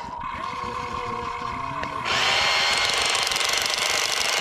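A small machine starts a loud, rapid mechanical rattle about two seconds in, like a jackhammer or hammer drill.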